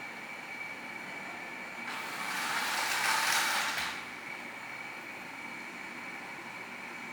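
Small electric motor of a toy remote-control car whirring, with a louder surge of whirring and rolling noise from about two to four seconds in.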